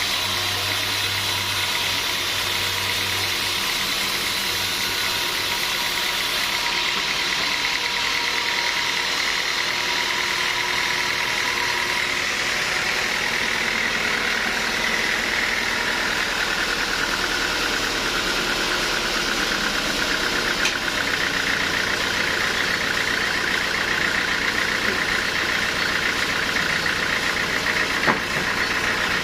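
Sawmill machinery running steadily, an engine-like drone with a higher whine that shifts in pitch about halfway through, and one short knock near the end.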